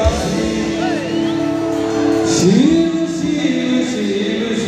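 Male devotional singer singing live through the stage sound system, holding long notes and sliding slowly between them, with the band accompanying.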